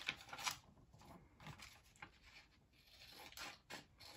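Scissors snipping through a sheet of paper in a series of short, faint cuts, with light paper rustling between them.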